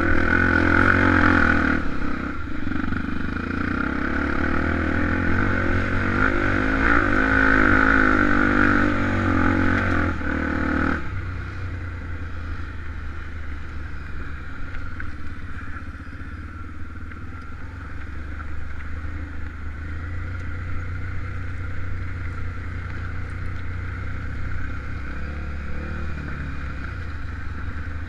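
Honda XR250 Tornado single-cylinder four-stroke dirt bike engine running under throttle, then dropping suddenly to a quieter, lower note about eleven seconds in, easing off and running on steadily.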